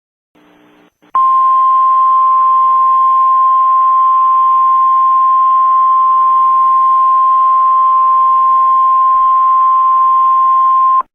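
Emergency-alert warning tone: a single steady, loud tone of about 1 kHz, like the weather radio 1050 Hz alarm, starting about a second in and holding for about ten seconds before cutting off sharply, with faint static beneath it. It is the attention signal that comes before the warning message.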